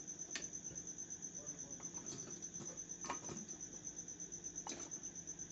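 A cricket chirping in a fast, even pulse at a high pitch, with a few faint clicks, the clearest about three seconds in.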